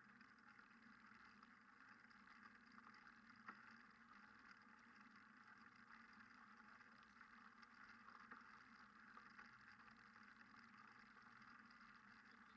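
Near silence: a faint steady hiss, with one soft click about three and a half seconds in.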